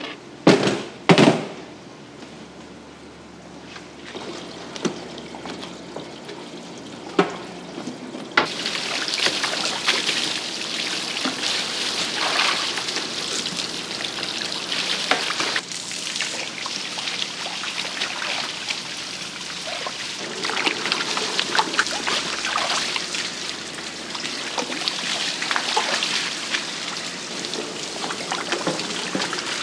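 Two heavy thunks as concrete press weights are set down on stacked wooden boards pressing mullet roe. From about eight seconds in, a hose spraying water over the roe on a wooden board gives a steady hiss with splashing.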